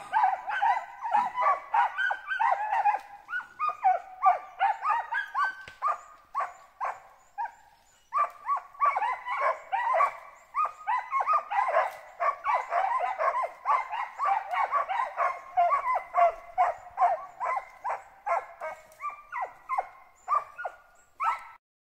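Hunting dogs barking rapidly and without let-up, about three barks a second, at a squirrel up in the trees. There is a short break about seven and a half seconds in.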